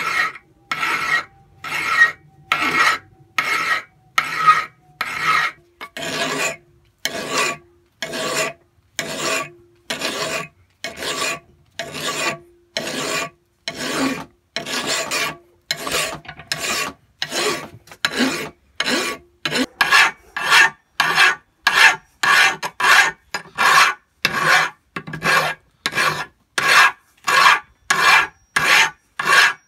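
A hand file is drawn in steady, evenly spaced strokes across the steel of a rusty, heavily pitted bolt cutter clamped in a vise, filing away the pitting. There are about one and a half strokes a second at first, quickening to about two a second past the middle.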